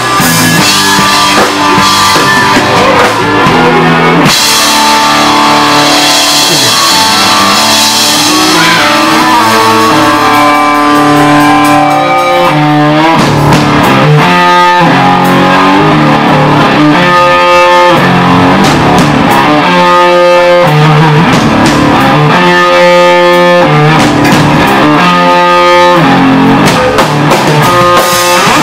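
Live rock band playing loudly on guitars and a drum kit.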